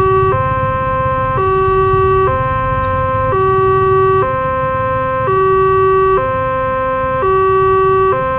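Indonesian railway level-crossing warning alarm: an electronic two-tone signal alternating between a higher and a lower note about once a second. It sounds while the boom barrier is lowering for an approaching train.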